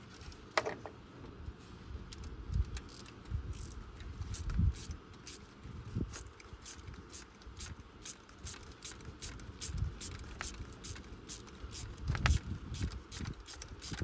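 Hand ratchet clicking in short strokes, several clicks a second, with scattered knocks of tools and parts against the engine.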